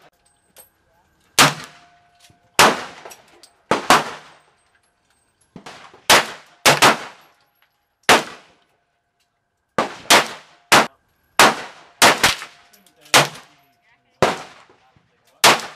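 Gunshots, about fifteen sharp reports at irregular intervals, some in quick pairs, each followed by a ringing echo. There are too many shots for one six-shot revolver, so several guns are firing.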